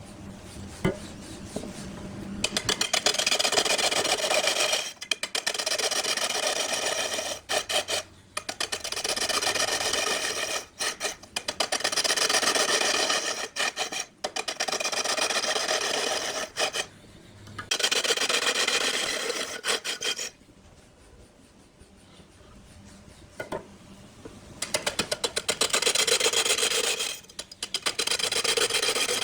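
Wood turning on a lathe, worked by a tool or abrasive held against it, with a rasping, rubbing sound. It comes in repeated passes of two to three seconds each, with short breaks between them and a longer pause about two-thirds of the way through.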